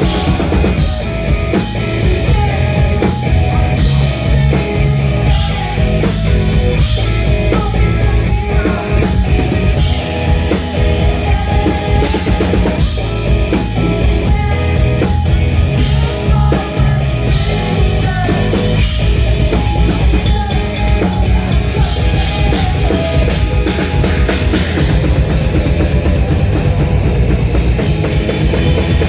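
Rock band playing live at full volume: pounding drum kit and distorted guitars, with some singing.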